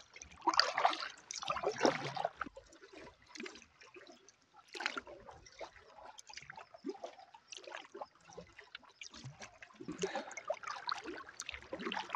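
Canoe paddle strokes in calm lake water: the blade dipping and pulling, with splashing and water trickling off it. There are a few uneven strokes with quieter gaps between them.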